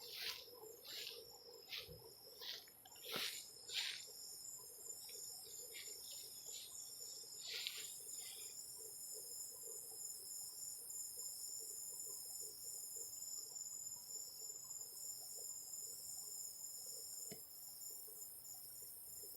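Night insect chorus of crickets trilling steadily and high-pitched. During the first four seconds there is a run of short scratchy noises, about two a second, with one more a few seconds later.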